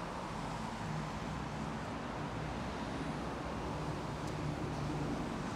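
Steady road traffic noise from cars driving along a wide multi-lane city road.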